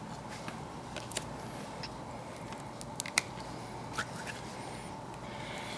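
A few small sharp clicks and taps from hands working moldable plastic on metal vise jaws, over a steady faint hiss.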